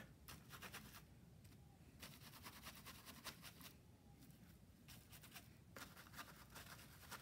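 Faint, irregular soft taps and scuffs of a paintbrush dabbing black acrylic paint through a plastic letter stencil onto paper.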